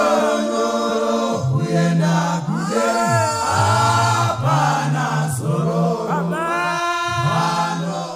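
Male a cappella choir singing a Shona gospel song in close harmony, with long held notes that slide between pitches.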